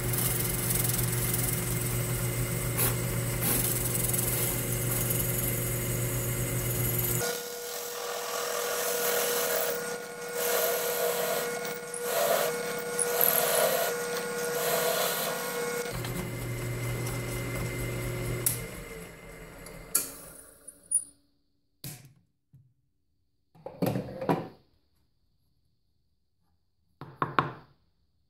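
Delta DP220 drill press running a 1-inch hole saw through a plywood disc: a steady motor hum, with the rasp of the saw cutting wood rising and falling. About two-thirds of the way through, the press is switched off and winds down. A few short knocks follow.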